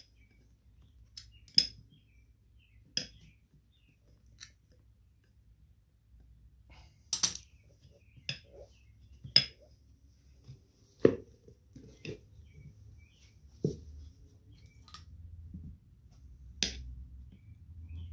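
Side cutters and hand tools clicking and clinking against a steel mower wheel rim as the old rubber valve stem is cut out; a dozen or so sharp, irregular clicks with quiet in between.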